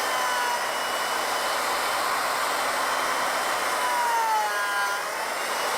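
Wood router on an ornamental mill running and cutting a flat along the taper of a square wooden leg: a steady rush of noise with a high whine from the spinning bit, its pitch dipping briefly about four seconds in.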